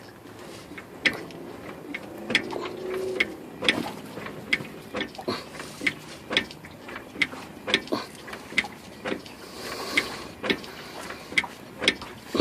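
Rear axle of a 2001 Jeep Grand Cherokee being rocked by hand at the differential, a loose part of the rear suspension giving a sharp metal clank with each rock, about two a second. This play is the source of the crack heard when the Jeep accelerates or comes to a stop.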